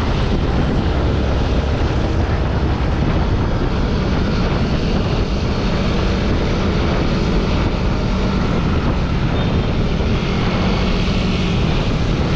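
Yamaha Sniper 150's single-cylinder four-stroke engine running at a steady cruising speed under a loud, even rush of wind on the microphone.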